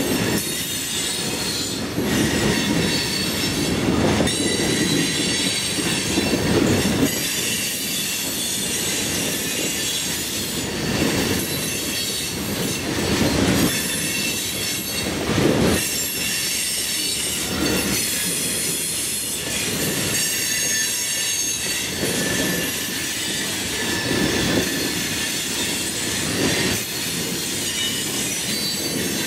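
Loaded rock hopper cars of a freight train rolling past. Steel wheels squeal in high steady tones over a low rumble that swells and fades every second or two.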